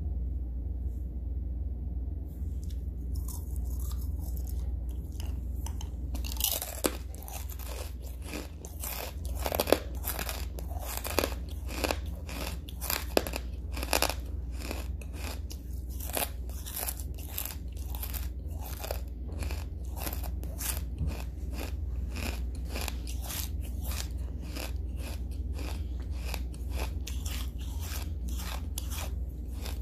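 Hard charcoal being chewed close to the microphone: crisp, brittle crunches begin a couple of seconds in, the loudest in the first half, then settle into steady chewing at about two to three crunches a second, over a low steady hum.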